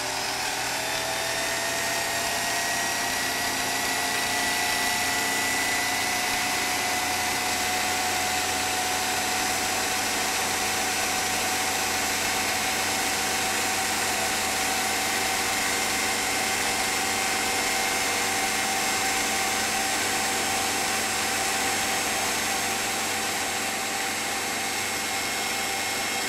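8 mm film projector running: a steady motor whir that rises a little in pitch over the first couple of seconds as it comes up to speed, then holds.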